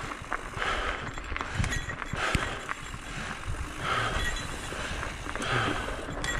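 Mountain bike rolling along a dirt singletrack: steady tyre and riding noise with small clicks and rattles from the bike.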